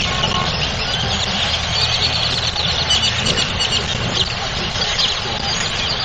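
A huge flock of birds perched on power lines, hundreds of them chirping and squealing at once in a dense, continuous chorus, over a low, steady rumble of traffic or an idling engine.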